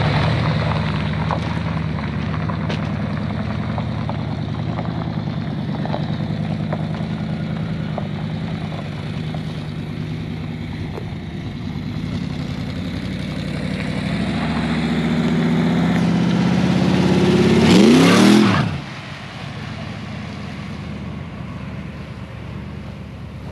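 Big-block Chevy V8 in a stripped 1973 Corvette C3 running as the car pulls away, then revving up and accelerating hard. It is loudest as it passes close by, about 18 seconds in, with a drop in pitch as it goes past, then fades quickly down the road.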